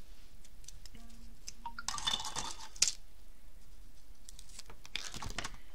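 Craft supplies being handled on a tabletop. There is a stretch of rustling about two seconds in that ends in a sharp click, and another short rustle near the end.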